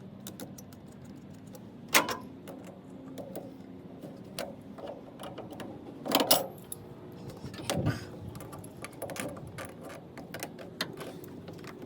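Hand tools and small metal hardware clicking and clinking during work on a car, with louder knocks about two, six and eight seconds in.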